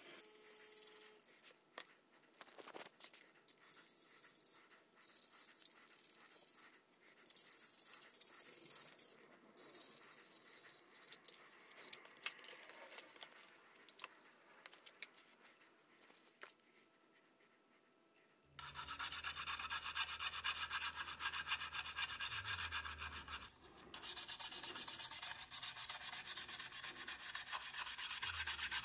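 Wet scrubbing on a Märklin tin toy boat's metal hull, in short bursts with pauses, stripping old paint and rust. About two-thirds in, a flat wooden stick starts scraping the softened paint off the tin in quick strokes, louder and continuous with a brief break.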